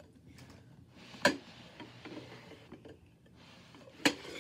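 Two sharp knocks about three seconds apart, over faint low background noise.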